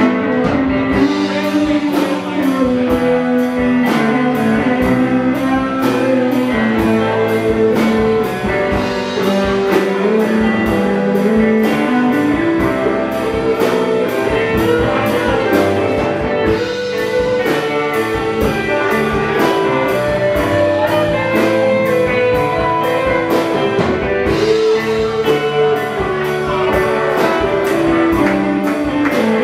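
Live band playing, with electric guitar over a steady drum beat.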